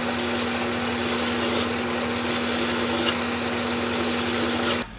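Hand file rasping against a metal part turning in an Atlas lathe's chuck, deburring it, over the lathe's steady running hum. Both stop abruptly near the end.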